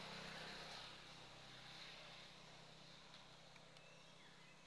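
Near silence: faint outdoor ambience with a low steady hum, a high hiss that fades about a second in, and a few faint chirps near the end.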